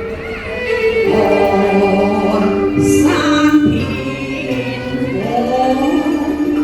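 Cantonese opera duet sung in the pinghou (natural) voice, with sung lines that bend in pitch over a Chinese instrumental ensemble holding long notes.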